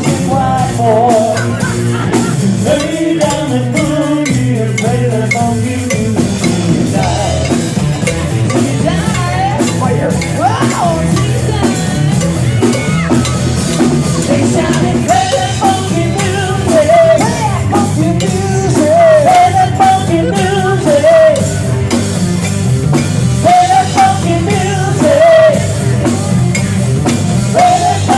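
Rock song with a singer, a drum kit and a steady rhythmic backing.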